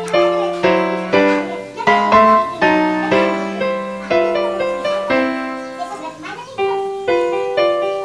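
Background piano music: a gentle melody of struck notes, each fading after it is played.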